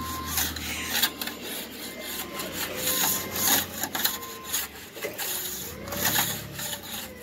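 A scraper blade scratching ice off a plastic folding-table top in quick, irregular strokes.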